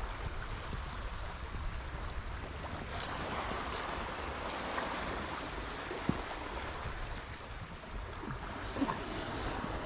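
Sea washing against a rocky shore with wind buffeting the microphone as a low rumble; two short knocks come about six and nine seconds in.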